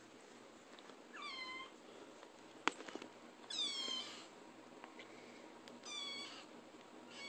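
Kitten meowing: three high meows, each sliding down in pitch, about two seconds apart, the middle one loudest and longest, with a fourth just starting at the end. A single sharp click falls between the first two meows.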